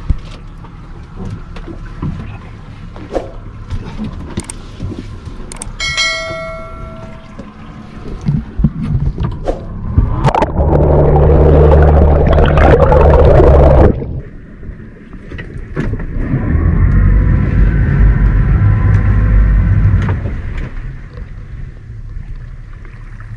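Boat engine running and throttled up twice, about ten seconds in for some four seconds and again from about sixteen to twenty seconds, each surge a loud low drone with a rush of noise above it. A short high-pitched tone sounds about six seconds in.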